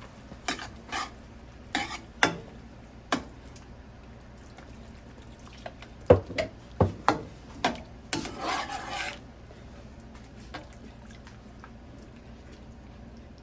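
Spoon knocking and clinking against a pot while gravy is stirred: a run of sharp taps, a pause, a second run of taps, then about a second of scraping against the pot near the middle.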